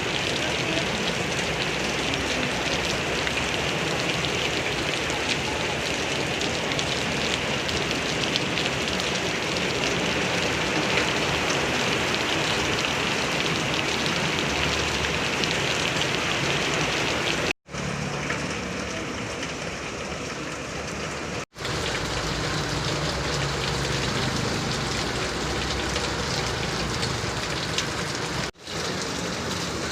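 Heavy rain falling steadily, a constant hiss of downpour, cutting out abruptly for an instant three times in the second half.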